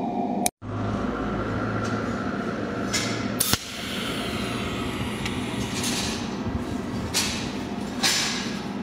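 Cold welding machine humming steadily, with several short sharp snaps spread through it as the tungsten needle fires weld pulses to tack a small ring in place.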